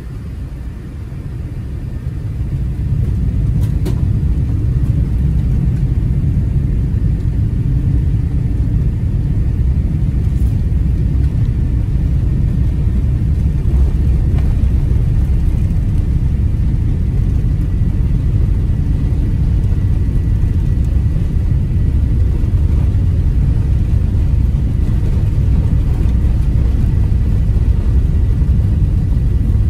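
Cabin sound of an Airbus A380-800 beginning its takeoff: the four Engine Alliance GP7200 engines spool up over the first few seconds, then a steady loud low rumble of takeoff thrust and the aircraft rolling down the runway.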